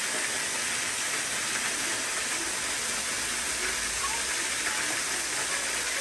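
Waterfall plunging from a rock overhang into a rocky pool, a steady, even rush of falling water.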